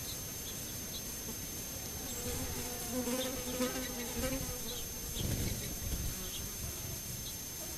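A flying insect such as a fly or bee buzzing close past the microphone, its drone wavering in pitch, from about two seconds in to past the middle.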